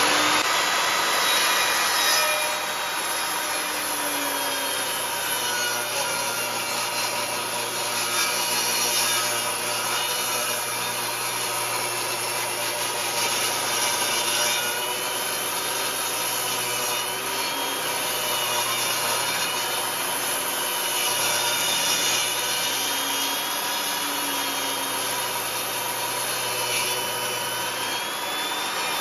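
Table saw ripping a 2x6 board lengthwise: the motor runs steadily while the blade cuts through the wood, its whine wavering in pitch as the feed varies.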